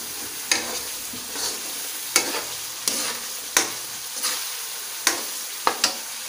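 Blended spice paste sizzling in a granite-coated wok while it is sautéed until fragrant. It is stirred with a metal spoon that scrapes and knocks against the pan about every three-quarters of a second over a steady frying hiss.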